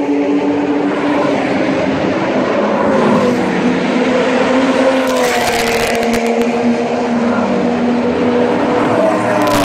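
Race car engines running at speed on the circuit, a loud steady drone whose pitch slides lower and then higher again as the cars change speed and distance. There is a short stretch of hiss around halfway and another near the end.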